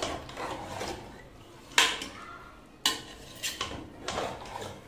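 Metal spatula stirring mutton, masala and yogurt in a metal pressure cooker, scraping and knocking against the pot. A few sharp clanks stand out, the loudest about two and three seconds in.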